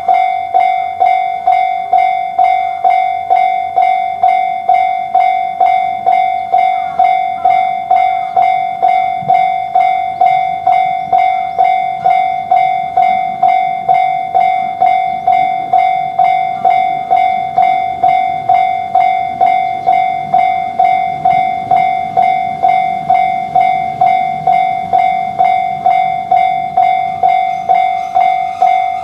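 Japanese railroad crossing alarm bell ringing its steady 'kan-kan' at about two strikes a second, one clear high tone per strike. Beneath it a passing train's low running rumble rises midway through and again later.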